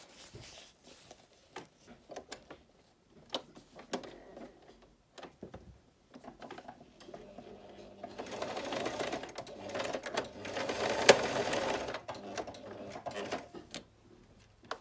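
Electric household sewing machine stitching through layered fabric and elastic, running steadily for about six seconds from roughly seven seconds in, with one sharp click near the eleventh second. Before it starts, scattered light clicks and rustles of the fabric being positioned under the presser foot.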